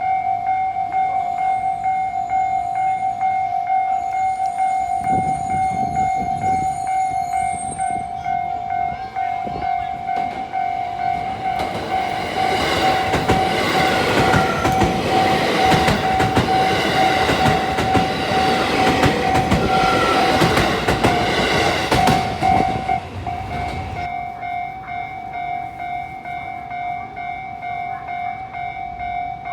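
Japanese level-crossing warning bell ringing with its steady repeating tone. A train passes over the crossing, and its wheels clatter loudly over the rails for about ten seconds midway. The bell keeps ringing after the train has gone.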